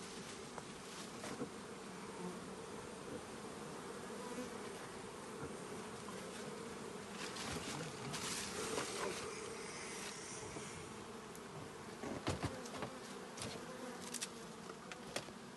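Honeybees buzzing around their hives: a steady droning hum that wavers slightly in pitch. Several sharp clicks or knocks come through about twelve seconds in and again near the end.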